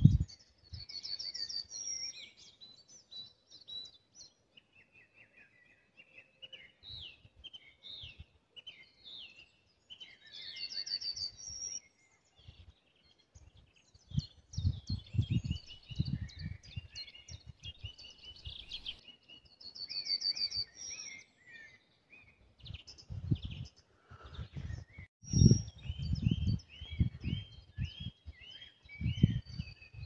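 Several songbirds singing, with short high trills and chirps; one bird repeats a rapid trilled phrase every nine or ten seconds. In the second half, bursts of low rumble on the microphone are louder than the birds.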